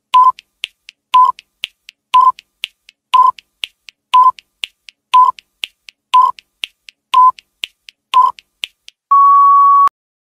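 Countdown timer sound effect: a beep on each second, nine in all, with faint ticks between them, then one long beep as the time runs out.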